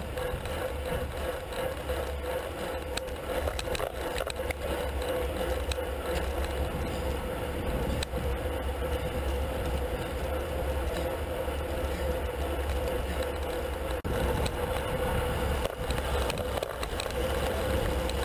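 Road bike riding fast in a racing pack, heard from a camera on its handlebars: a steady rumble of wind and tyres on the road with light rattling from the bike, over a steady hum.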